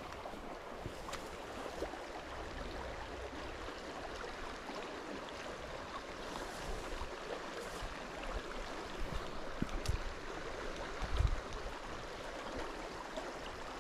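A small river's water running steadily with an even hiss. A few brief low thumps come near the end.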